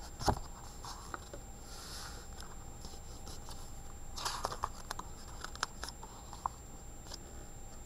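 Picture-book pages being turned and a hand brushing over the paper: a soft knock about a quarter second in, a papery rustle around four seconds in, then a few light ticks.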